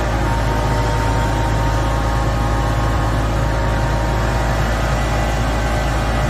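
Engine of a large Hoist FR-Series forklift running steadily at low speed as the truck creeps forward, a constant low hum with no revving.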